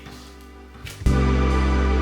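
Instrumental background music comes in suddenly and loudly about a second in, with a steady, heavy bass, after a quiet first second.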